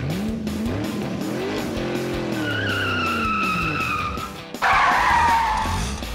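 Car sound effects: an engine revving up and down, then a long tyre squeal about two seconds in, and a sharper, louder falling screech near five seconds in.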